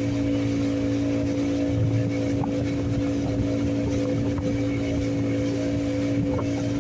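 Boat engine running at a constant speed, a steady hum with no change in pitch.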